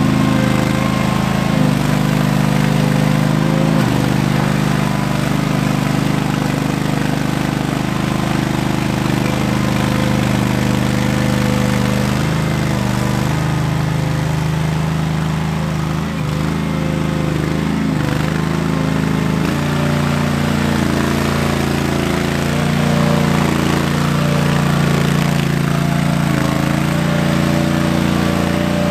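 Engine of an Ingersoll 7020L garden tractor with a front loader, running steadily. Its pitch dips and recovers several times as the tractor drives and works the loader.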